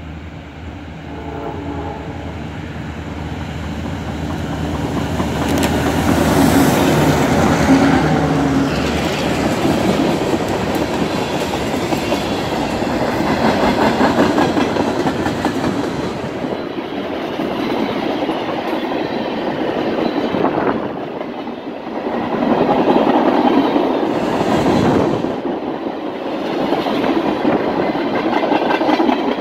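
Freight train passing on the near track. The diesel locomotive draws near with a steady droning tone and goes by a few seconds in, then a long string of tank cars rolls past with rumbling wheel-on-rail noise that swells and fades as the cars go by.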